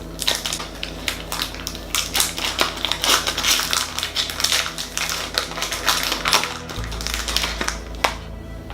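Foil Pokémon booster pack wrapper being crinkled and torn open by hand: a dense run of sharp crackles that stops near the end. Background music plays underneath, and its bass comes in near the end.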